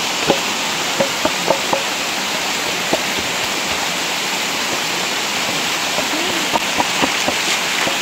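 Waterfall running: a steady rush of falling water, with a few faint clicks over it.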